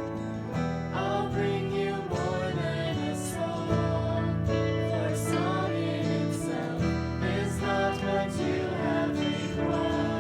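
Contemporary Christian worship song playing, led by guitar with sustained chords, and faint singing.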